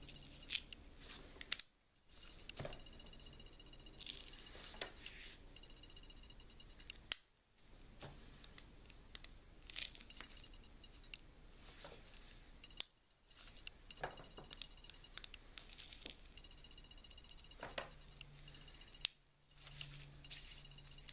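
Faint handling sounds of a Beretta 950BS Minx .22 Short pocket pistol: small metal clicks as its tip-up barrel and hammer are worked, with the crinkle of vinyl gloves. A few sharper clicks stand out, about four in all.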